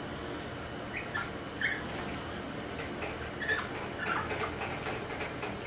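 Imperial Shih Tzu puppies giving a handful of short, high squeaks and whimpers as they play, with scattered soft clicks of paws on the tile floor.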